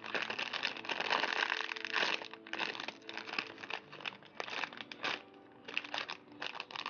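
Plastic packaging crinkling as it is handled, in dense irregular bursts that thin out after about two and a half seconds.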